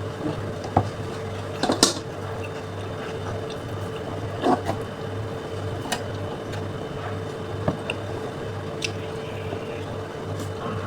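Close-miked eating sounds: wet, squishy chewing with a few sharp smacks and clicks scattered through, over a steady low hum.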